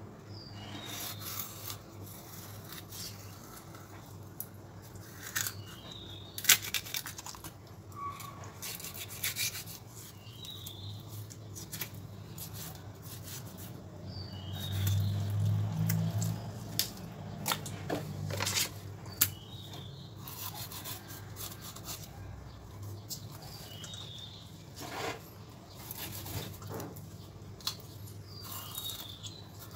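Kitchen knife slicing along the back of small red tilapia on a wooden chopping board, scraping through scales and flesh, with sharp clicks of the blade against the board. A low hum swells and fades around the middle.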